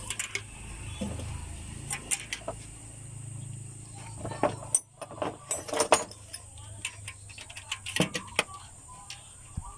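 Scattered metallic clinks and knocks of tools being handled, over a low steady hum.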